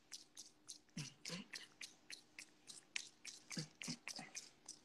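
Faint, quick taps on a phone's touchscreen keyboard while typing, about five light clicks a second in an uneven run.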